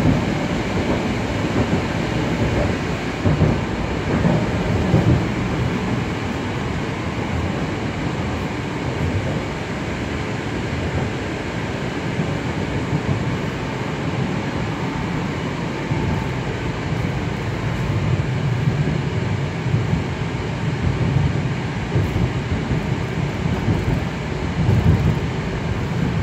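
Ride noise inside a Moscow Metro 81-765.2 'Moskva' car running between stations: a steady low rumble from the wheels and running gear, with a few brief louder bumps.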